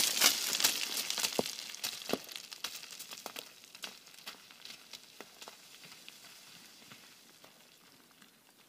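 A rock tumbling down a loose scree slope, knocking and bouncing, with small stones sliding and clattering after it. The clatter grows steadily fainter as the rock falls away down the slope.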